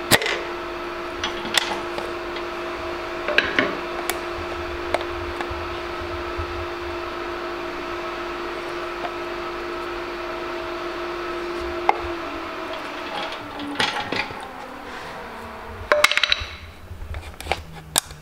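Scattered knocks and taps of tools and metal as a piston with its rod is worked into a cylinder bore of an iron-block LS V8, over a steady hum that stops about twelve seconds in.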